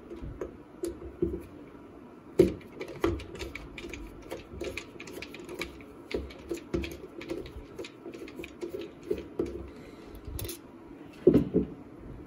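A flathead screwdriver turns out the steel screw that holds a Winchester Model 12 shotgun's trigger assembly: a string of irregular small metal clicks and scrapes, with a few louder knocks, among them one about two and a half seconds in and one near the end.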